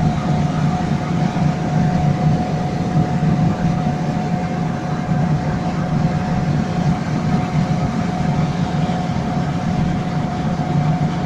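Fiat 850 Sport's small rear-mounted four-cylinder engine running steadily at motorway cruising speed, together with road and wind noise, heard from inside the cabin. A thin steady whine runs through it.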